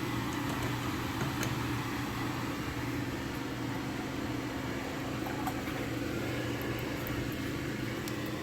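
Steady hum of an exhaust fan running on high, with a few faint ticks over it.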